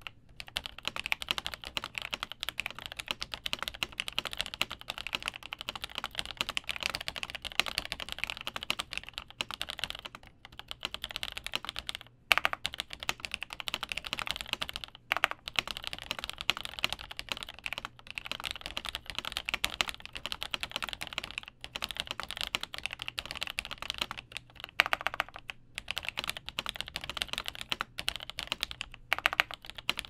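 Steady fast typing on a Cherry G80-1000 keyboard with lubed Cherry MX Black linear switches and original doubleshot keycaps: a dense run of keystrokes broken by a few brief pauses, with a couple of louder single strikes around the middle.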